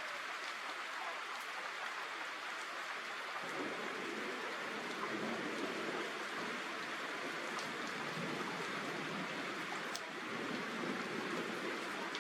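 Steady rain falling, a continuous hiss. A little after three seconds in, a lower, rougher layer of heavier rain on surfaces joins it.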